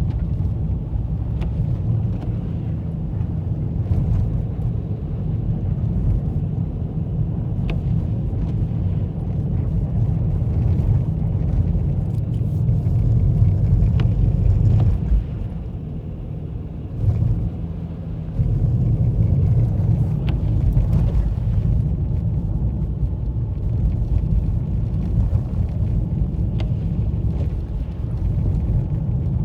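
Car cabin noise while driving: a steady low rumble of engine and tyres on the road, easing off for a few seconds a little past the middle.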